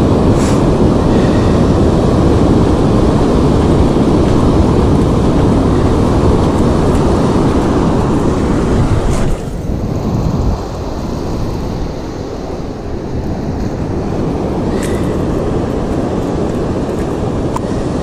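Wind buffeting the microphone in a steady rumble over the wash of heavy surf. About nine seconds in it drops and turns duller.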